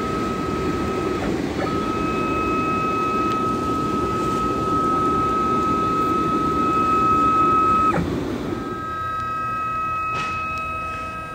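Industrial machine running: a steady high-pitched whine over a rumbling mechanical noise. The rumble drops away about eight seconds in while the whine carries on.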